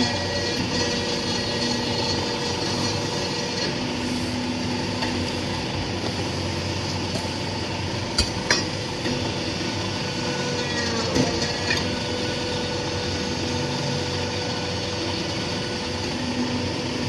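Interlocking brick-making machine running with a steady motor hum, with two sharp knocks about eight seconds in and another about eleven seconds in.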